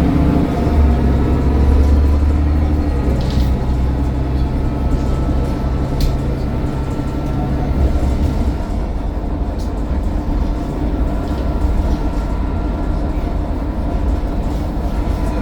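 Mercedes-Benz Citaro O530 bus engine running under way, a deep drone with a thin high turbo whine over it; the low drone eases off about eight seconds in. A couple of short knocks.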